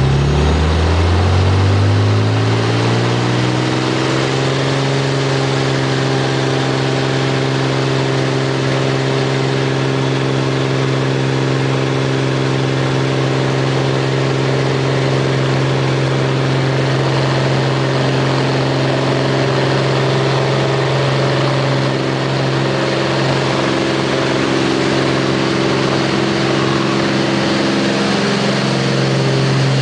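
Cessna 210's six-cylinder piston engine and propeller heard from inside the cabin during takeoff. The pitch rises over the first few seconds as power comes up for the takeoff roll, then the engine runs steadily at full power through the climb.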